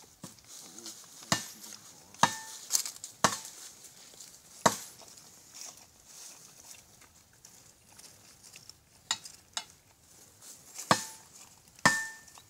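Dry leaf litter crackling and rustling around a dog, broken by irregular sharp clicks, a few of them ringing briefly like the metal links of the chain on its collar.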